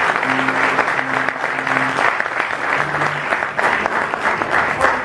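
Audience applauding steadily, with a low held tone sounding on and off beneath it in the first two seconds and again about three seconds in.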